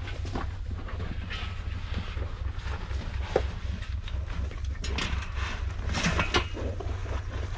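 Wind buffeting the microphone as a steady low rumble, with scattered rustles and knocks from people moving about, and one sharp knock about three and a half seconds in.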